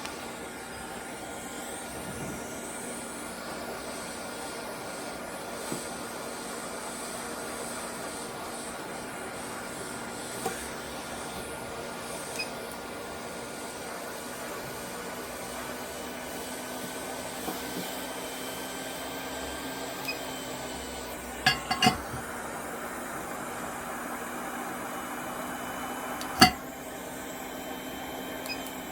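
ATTEN ST-862D hot air rework gun blowing steadily while it warms up to working temperature: an even hiss of air with a faint hum. A couple of sharp clicks come close together about three-quarters of the way through, and a single louder click comes near the end.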